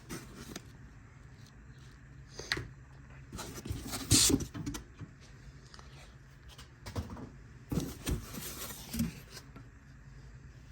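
Packaging and kit parts being handled during unboxing: intermittent rustling and light knocks, the loudest a little past four seconds in.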